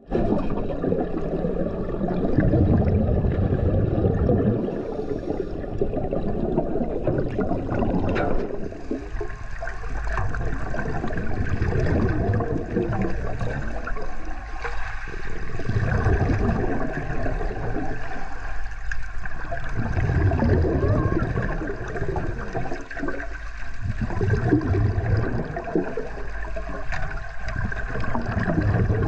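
Water sloshing and gurgling around a submerged shark-diving cage, picked up by a camera at or just below the surface, swelling in surges every three to four seconds.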